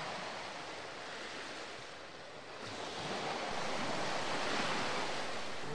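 Waves on choppy open water washing at a sandy shore, a steady rush that eases a couple of seconds in and swells again.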